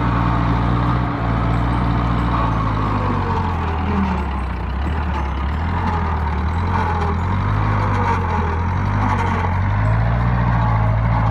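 Old Massey Ferguson backhoe's engine running hard while it works. Its pitch sags for a few seconds under load and then climbs back up.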